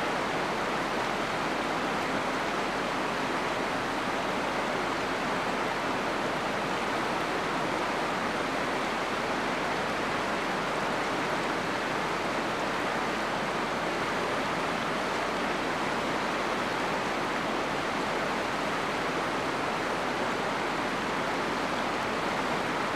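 Steady, unchanging rushing noise, like running water, with no bird calls in it.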